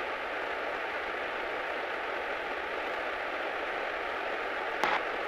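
Steady hiss of light-airplane cabin noise heard through the headset intercom during taxi, with a faint steady whine and a single click near the end.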